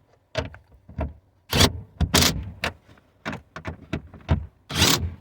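Small cordless impact driver run in a series of short bursts, running down and snugging the taillight's mounting nuts.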